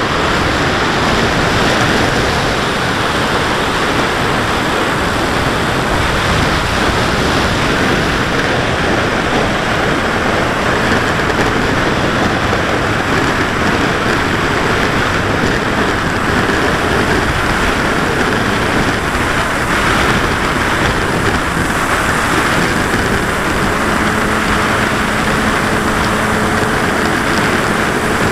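Steady rush of wind and propeller noise on the onboard camera of a Carbon-Z Cub electric RC plane in flight. About 24 s in, a low, steady electric-motor hum comes through under the rush.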